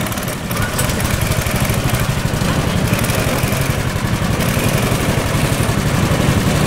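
Several go-kart engines running together, a steady, rapidly pulsing rumble of small single-cylinder motors as karts pull out of the pit lane.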